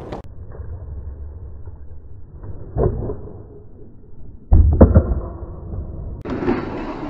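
Skateboard wheels rolling on concrete, a sharp knock near three seconds in, then a loud clack about four and a half seconds in as the board lands on a wooden beam and slides along it.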